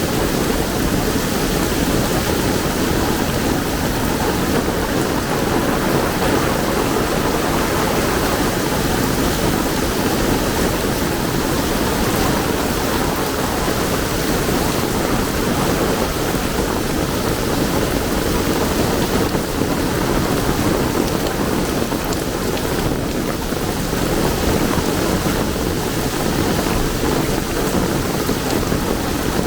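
Heavy rain pouring steadily, an even unbroken hiss of falling water.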